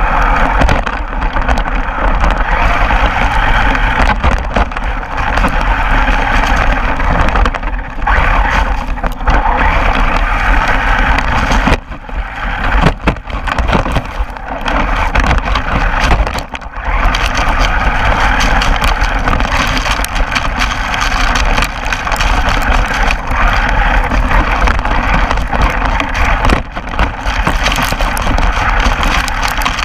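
1:10-scale RC monster truck running, a steady noisy motor and drivetrain sound with a heavy low rumble. It drops off briefly twice, about twelve seconds in and again around sixteen seconds in.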